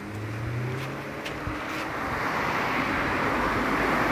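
A road vehicle's rushing noise growing steadily louder as it draws near, over a faint low hum.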